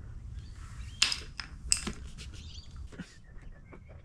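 Rubber door seal being forced by hand into the steel track of a roller door: two short, sharp scraping squeaks about a second in and just under two seconds in, with a few smaller clicks and rattles after. The seal is jamming in the track.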